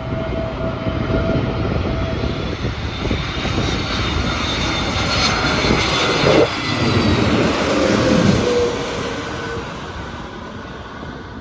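Airbus A320neo airliner on landing approach passing by: jet engine noise swells to a peak about halfway through and then fades away, with a whining tone that drops in pitch as it goes past.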